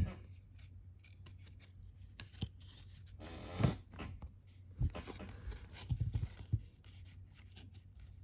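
Baseball cards from a freshly opened pack being handled and flipped through: scattered soft slides, rustles and light taps of card stock, over a faint steady low hum.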